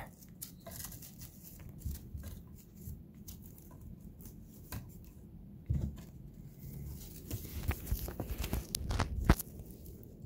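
A cat batting and pouncing at a goose feather on a sisal-rope cat tree: irregular scratches, rustles and soft thumps. A soft thump comes about six seconds in, and the scratches grow busier near the end, with the loudest knock about nine seconds in.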